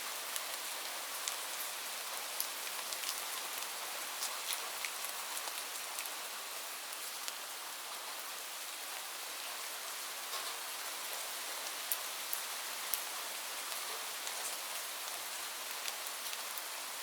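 Light rain falling steadily, an even hiss with scattered separate drop ticks.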